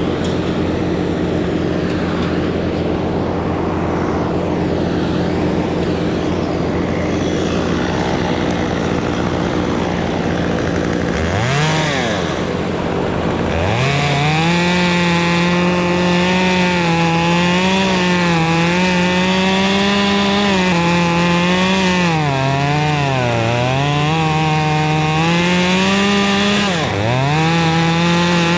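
Two-stroke chainsaw idling steadily, then blipped about eleven seconds in, then opened up to high revs about two seconds later. It runs at full throttle for most of the rest, its pitch sagging and recovering as it cuts wood, with a brief drop in revs near the end.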